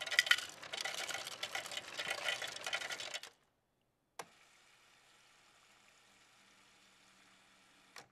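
Ice cubes clattering out of a soda fountain's ice dispenser into a cup for about three seconds. After a click about four seconds in, a faint steady hiss of soda pouring from the dispenser valve into the cup.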